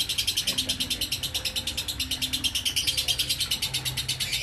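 Lovebird 'ngekek' in the 'konslet' style: one long unbroken chattering trill of rapid, evenly spaced high notes, about ten a second.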